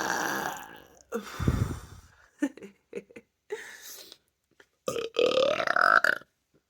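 A person burping on purpose. A long burp fades out in the first second, a short deep one follows about a second in, and a loud, drawn-out burp comes about five seconds in.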